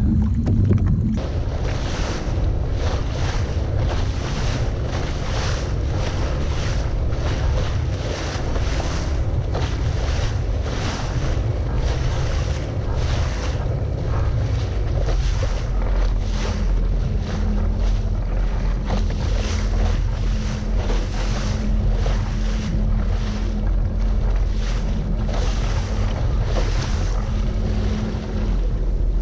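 Sea-Doo jet ski running across choppy sea: heavy wind buffeting the microphone and water slapping against the hull in quick repeated hits. A steady low engine drone comes up about halfway through.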